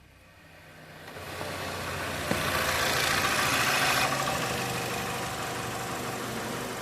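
2019 Toyota Camry engine starting up on freshly fitted spark plugs. The sound swells in, runs loudest for a couple of seconds with a sharp click as it catches, then eases down to a steady idle.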